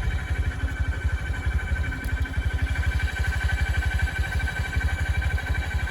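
Motorbike engine running with a fast, even pulse, with a steady high-pitched buzz over it.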